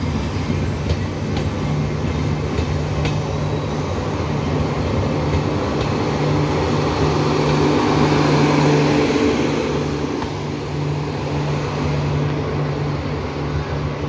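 LHB express coaches passing close by at speed, wheels rumbling over the rails. It is loudest about eight seconds in as the grilled rear power car goes by, then eases as the train pulls away.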